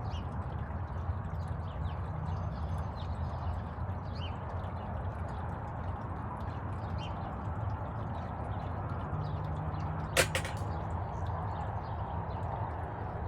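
Steady wash of water noise, with scattered faint high ticks and one sharp clatter of a few clicks about ten seconds in.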